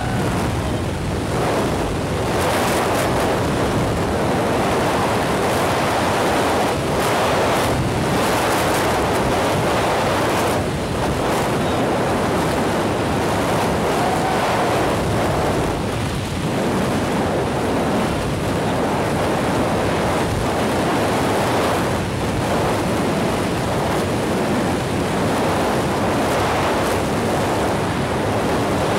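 Freefall wind during a tandem skydive: air rushing past at falling speed and buffeting the camera microphone in a steady, loud wash of noise.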